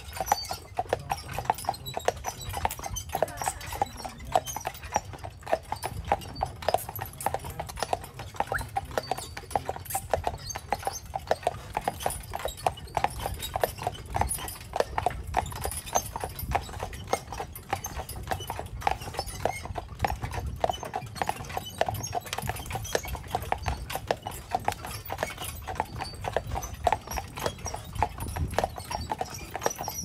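Hooves of a pair of carriage horses clip-clopping at a walk on a paved path, a steady run of sharp hoof strikes over a low rumble.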